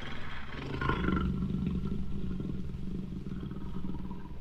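Jaguar giving one long, low, rasping growl that starts about half a second in and fades near the end.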